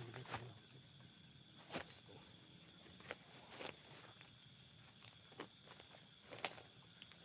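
Scattered footsteps and scuffing on the forest floor as several people shift about together, the loudest step about six and a half seconds in. A faint steady insect chirring runs behind.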